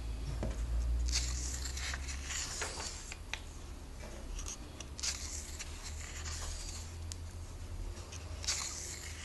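Glossy comic-book pages being turned by hand, three swishing page turns a few seconds apart, with light paper rustle between them, over a low steady hum.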